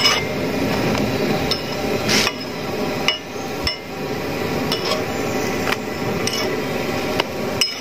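A spatula knocking and tapping on a hot griddle as a porotta is flipped and turned. There are several short, sharp knocks spread through, over a steady hiss.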